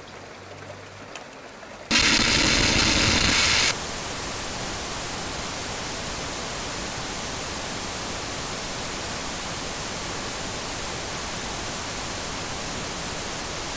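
A quiet couple of seconds, then about two seconds in a loud burst of static hiss starts; after a second and a half it drops to a softer, steady static hiss that carries on.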